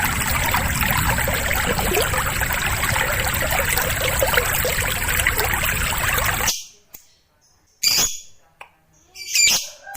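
A steady rushing noise that stops abruptly about six and a half seconds in, followed by two short, loud, high lovebird calls about a second and a half apart.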